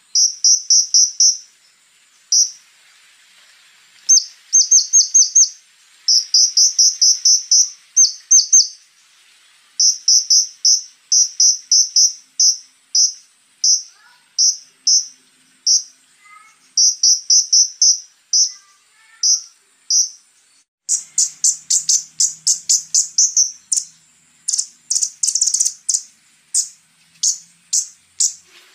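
Konin songbird singing rapid clusters of very high, sharp notes in bursts of several at a time. About three-quarters of the way in it breaks into a faster, harsher run of notes. A faint steady high insect-like trill runs underneath.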